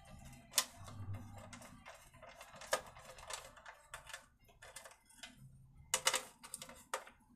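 Irregular clicks and light knocks of small parts and tools being handled on a petrol generator's engine. The sharpest come about half a second in, near three seconds and about six seconds in.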